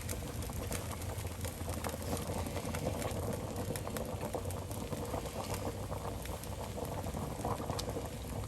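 Homemade white gravy (a butter-and-flour roux thinned with milk and chicken broth) bubbling on the stove, with a steady stream of small crackling pops.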